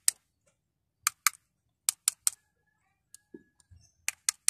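Screwdriver tip tapping the graphite-like rotor and body of a Shimano Sienna 2500FD spinning reel: about nine sharp clicks in quick pairs and triplets.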